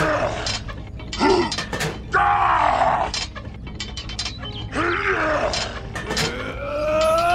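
A run of dubbed straining groans and grunts, about five effortful vocal sounds with pitch arching up and down, the last and longest near the end, over scattered clicks and a low steady hum.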